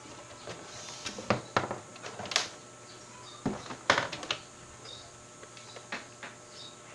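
Handling noise on a workbench: a string of separate sharp clicks and knocks as hands move circuit boards and electronics parts and pick up a handheld multimeter, the loudest a little after one second, at two and a half seconds and at about four seconds.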